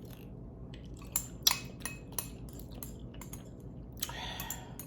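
Eating utensil clinking and scraping against a bowl of ramen noodles, a string of sharp clicks with the loudest about a second and a half in. A short noisy stretch follows near the end.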